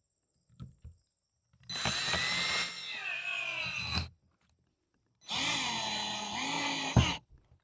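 Power drill driving a screw into the lock plate on a wooden door in two runs of about two seconds each, the motor's whine dropping in pitch as the screw bites. A sharp click follows near the end.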